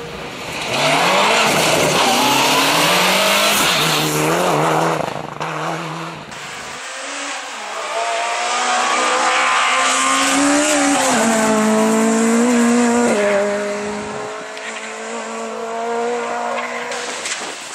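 Rally cars driven flat out on a stage, engines revving hard and climbing in pitch through the gears with drops at each gear change, along with tyre squeal. The sound changes abruptly about seven seconds in, as if to another car.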